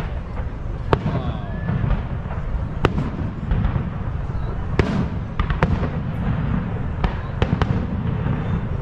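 Fireworks going off: about ten sharp bangs at irregular intervals, several coming in quick pairs around the middle, over a steady low rumble.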